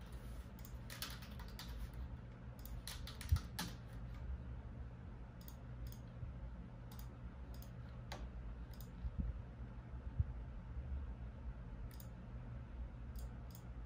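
Computer keyboard being typed on in irregular bursts. A quick run of keystrokes comes in the first few seconds, then scattered single clicks and short groups follow. A low steady hum lies underneath.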